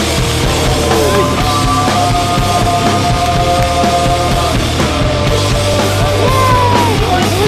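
Loud rock music soundtrack, steady throughout, with long held notes over a dense, driving backing.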